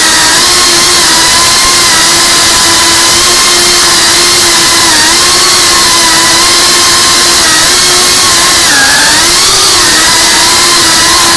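Small FPV racing quadcopter's electric motors and propellers whining steadily in flight, the pitch dipping briefly a few times.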